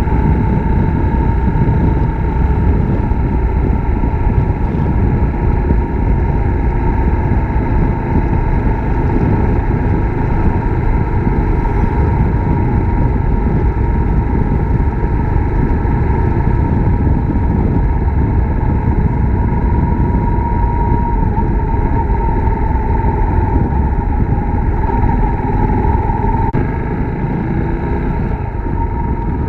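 Suzuki Grasstracker Big Boy's 250 cc single-cylinder engine running at a steady cruise while riding, with heavy wind noise on the microphone.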